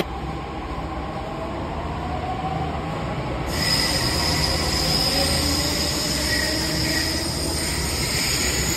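Delhi Metro train moving alongside the underground platform: a steady rumble with a faint wavering whine from the running gear. About three and a half seconds in, a high steady tone and brighter hiss join in.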